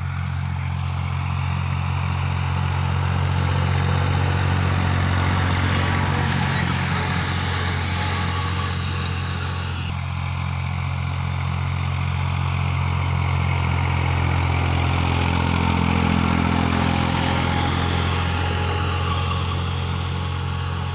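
Massey Ferguson 255 tractor's three-cylinder diesel engine running steadily under load, driving a Wirax rotary mower as it cuts grass.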